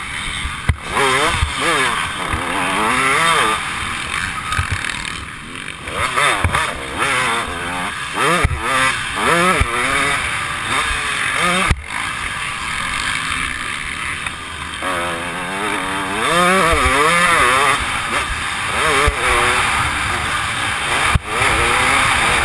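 Motocross dirt bike engine heard close up from the rider's helmet, revving up and falling back again and again as the throttle is worked through corners and straights, over a steady rushing noise.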